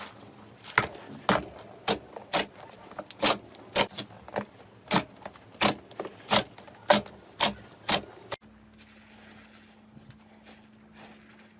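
Slime being pressed and squeezed by hand, giving sharp clicking pops about twice a second. About eight seconds in, this cuts off abruptly to a much quieter stretch with a low steady hum and only faint, scattered sounds.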